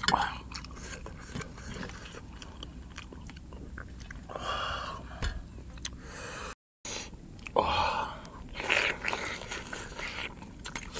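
Eating sounds: biting and chewing boiled beef head meat and skin, with many short clicks and crunches. A brief dropout cuts the sound just past the middle.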